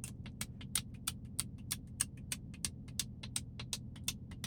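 A nearby generator running with a steady low hum, overlaid by a quick, uneven run of sharp clicks, about five or six a second.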